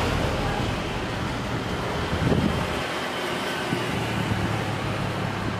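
Jet engines of a Pelita Air Airbus A320 at takeoff thrust during its takeoff roll, heard at a distance as a steady roar with a low hum.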